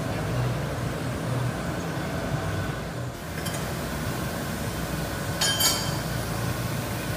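Steady hum of induction-hardening equipment in use on a machined metal part, with a brief metallic clink of metal on metal about five and a half seconds in.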